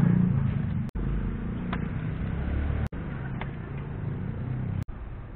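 A steady low engine hum, broken by brief cut-outs in the sound about every two seconds, with a few faint sharp ticks.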